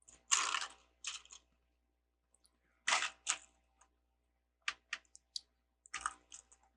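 Plastic LEGO pieces being handled and snapped together: a few short rattling scrapes, then a run of sharp little clicks in the second half.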